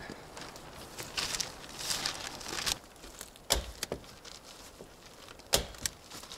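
Rustling, crinkling handling noise for a couple of seconds, then two sharp knocks about two seconds apart.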